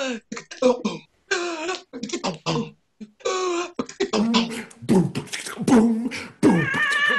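A woman's voice makes a quick run of non-speech vocal sounds in the manner of beatboxing: short hisses, pops and clicks, and falling pitch slides. Near the end comes a higher held note that wavers.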